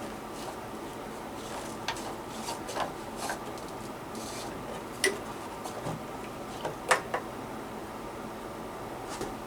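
A few light, scattered clicks and knocks of hard parts being handled, the loudest about seven seconds in, over a steady hiss.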